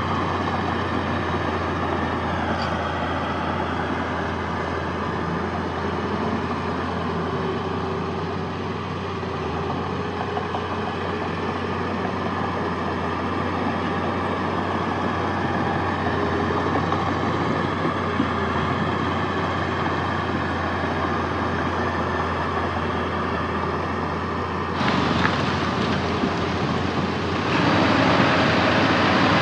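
Heavy earthmoving machinery's diesel engine running steadily. About 25 seconds in the sound abruptly turns louder and harsher, and it grows louder again a couple of seconds later.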